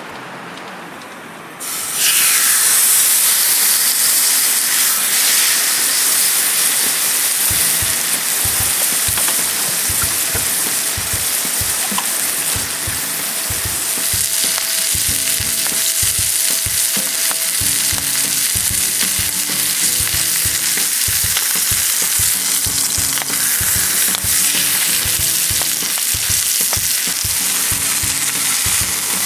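Steak sizzling loudly in a hot pan; the sizzle starts suddenly about two seconds in and then runs steadily. Background music comes in underneath a few seconds later.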